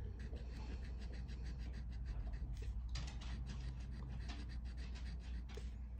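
Scratch-off lottery ticket being scratched with the tip of a pen-shaped tool: quick, irregular scrapes on the coating, densest about three seconds in, over a steady low hum.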